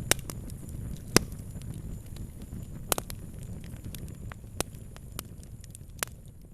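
Fire crackling: scattered sharp pops and snaps, the loudest near the start, about a second in, around three seconds and around six seconds, over a steady low rumble of the flames.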